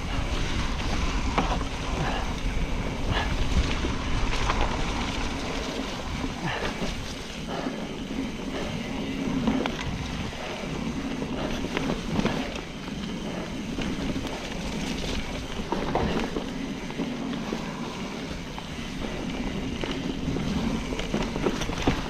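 Trek Fuel EX 9.8 full-suspension mountain bike being ridden down a rough trail, with frequent clicks and knocks from the bike rattling over the ground and steady tyre noise. Wind buffets the action-camera microphone.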